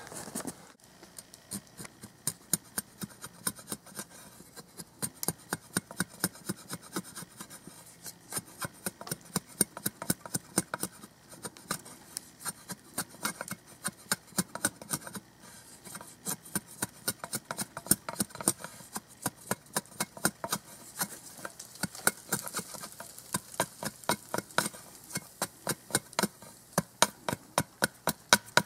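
Sharpened steel edge of a Cold Steel Special Forces shovel shaving curls down a dry wooden stick to make a feather stick: a fast run of short scraping cuts, several a second, in runs with brief pauses.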